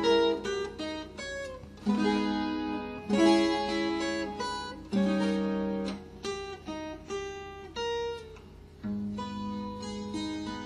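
Acoustic guitar playing an instrumental introduction, plucked notes and strummed chords that ring on.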